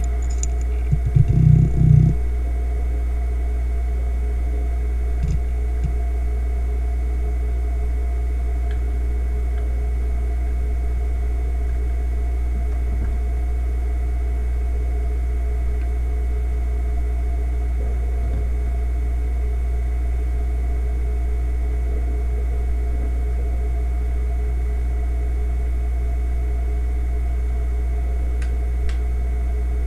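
Fujitsu MEA3320BT 3.5-inch SATA hard drive, a 3,600 rpm fluid-bearing drive, spun up and running: a loud burst of clunks and clicks from about one to two seconds in as it initialises, then idling with a steady low spindle hum and a thin high whine, broken by a few faint ticks.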